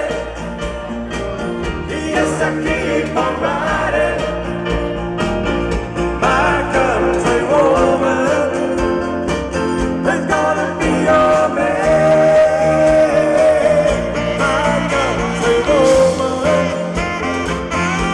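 Live band playing a pop song, with a singer's voice carried over the instruments.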